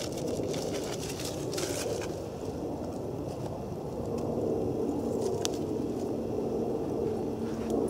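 Small campfire of damp brushwood and thin sticks crackling, with a few sharp snaps in the first two seconds and one more midway. Under it runs a steady low rumble that grows louder about halfway through.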